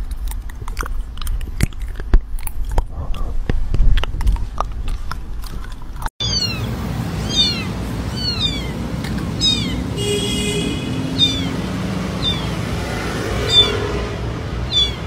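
A run of clicks and knocks, then, about six seconds in, a tiny newborn kitten mewing over and over in high, falling cries.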